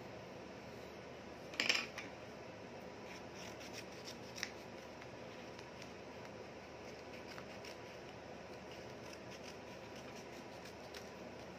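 Small scissors snipping green craft paper, with faint snips and paper handling noise. There is one brief louder noise about two seconds in.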